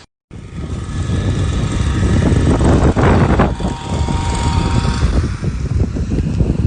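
A car engine running with a heavy low rumble, and a louder surge of noise about three seconds in.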